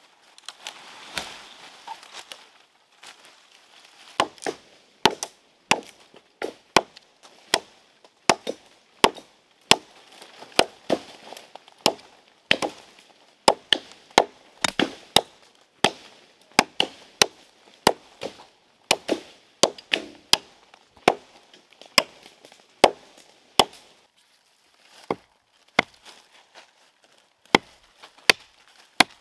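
Wood being chopped with a blade: a long run of sharp strikes, about two a second, starting a few seconds in, with a short pause near the end.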